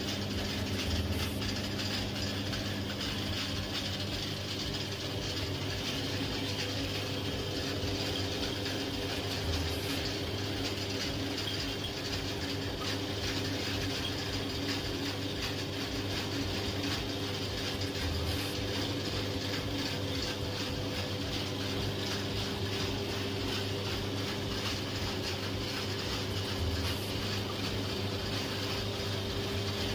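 Jewellery casting machine running: a steady electric hum made of several held tones over a hiss, with a faint click about every eight to nine seconds.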